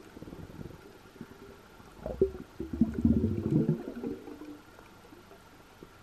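Bubbling gurgle heard underwater, starting about two seconds in and lasting about two seconds, over a faint steady whine.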